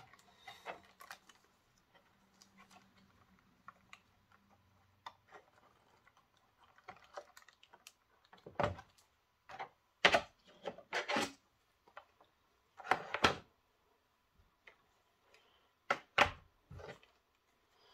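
Clicks, taps and light knocks of a clear plastic box and insert being handled as a model railway coach is worked out of its packaging and set down on the track. Sparse at first, with louder clusters of clicks from about halfway through.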